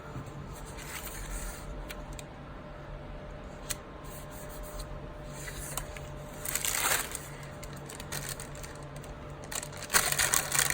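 Paper sticker sheets and planner pages being handled while flower stickers are placed: soft rustling with a few small clicks, and a louder rustle of paper about six and a half seconds in and again near the end.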